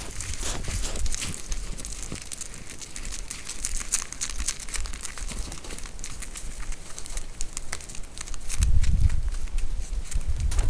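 White-tailed deer hooves crunching in packed snow: a run of small, irregular crackling crunches. A low rumble comes in near the end and is the loudest sound.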